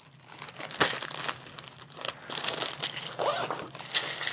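Crinkling and rustling of a ditty sack and the small items being stuffed into it, in irregular handling noises with a sharp tap about a second in and busier rustling in the second half.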